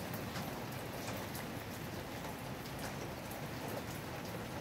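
Steady rain falling, with scattered individual drops ticking close by.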